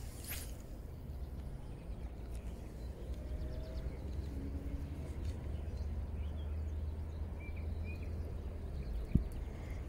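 Riverbank ambience with a low steady rumble underneath. A brief swish of a light spinning rod being cast comes about a third of a second in, a few faint bird chirps come near the end, and there is a single sharp click shortly before the end.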